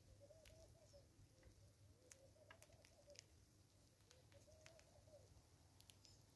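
Faint dove cooing: three soft, wavering phrases of about a second each, one every couple of seconds. Scattered faint clicks and ticks sound over it.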